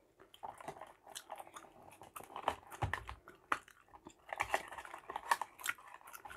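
Chewing gum being chewed close to the microphone: irregular wet smacks and clicks.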